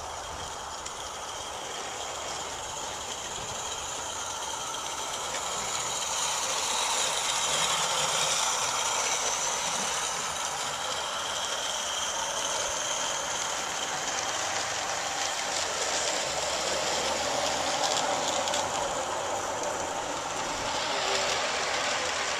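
Live-steam 16 mm scale model locomotive running on 32 mm gauge garden railway track, giving a steady hiss of escaping steam that grows louder about six seconds in as the engine comes close.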